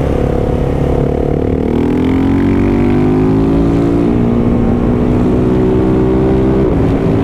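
Husqvarna 701 Supermoto's single-cylinder engine heard from the rider's seat while riding. The engine note falls over the first two seconds, then rises slowly as the bike pulls again, with a short step in the note near the end.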